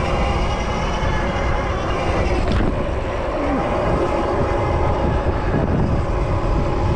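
City street traffic heard from an electric bike riding along in it: a steady, loud low rumble with a hum of several steady tones over it.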